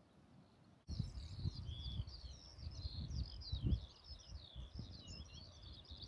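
A songbird singing a long, unbroken, rapidly warbling high song, with wind gusting on the microphone. Both start suddenly about a second in.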